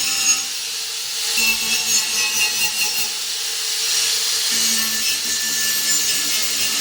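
A hand tool rasping against workpiece material, like sawing or filing. It goes in short strokes of about four a second between one and three seconds in, over a faint steady hum.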